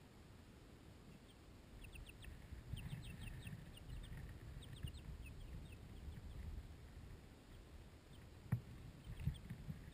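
Young Light Sussex chicks peeping: a run of short, high, falling peeps, many in quick succession, fading out after about seven seconds. Low scuffling runs underneath, and there is a single sharp tap about eight and a half seconds in.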